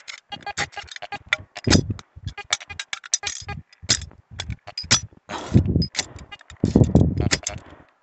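Small hand shovel digging into soil and pine-needle litter: a run of quick scrapes and knocks, with two heavier, longer scraping strokes a little past halfway.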